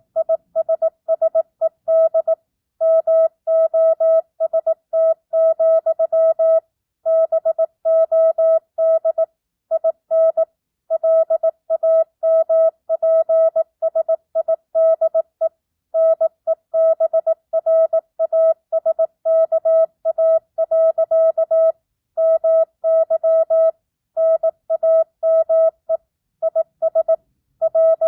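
Morse code (CW) sent at 18 words per minute with standard, non-Farnsworth spacing. It is a single steady beep keyed on and off in short dots and longer dashes, with brief gaps between letters and slightly longer pauses between words. The sending simulates a two-way amateur radio contact.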